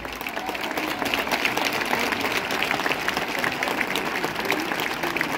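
A crowd applauding: steady, dense clapping that holds at an even level.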